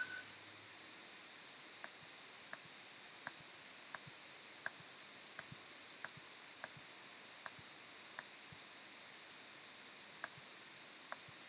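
Computer mouse clicking: about a dozen single clicks, roughly one every 0.7 seconds with a short pause near the end, faint over a low steady hiss.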